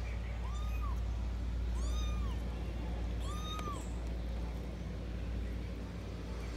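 A domestic cat meowing three times, each call rising and then falling in pitch, about a second and a half apart, over a steady low rumble.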